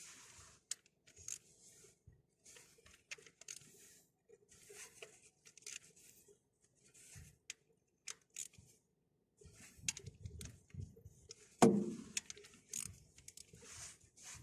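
Hand tools at work on metal parts: irregular scraping, rubbing and clicking, with one loud metallic clank a little before the end.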